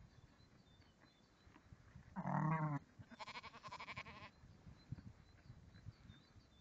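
Sheep bleating: one loud, deep bleat about two seconds in, followed straight after by a higher, quavering bleat lasting about a second.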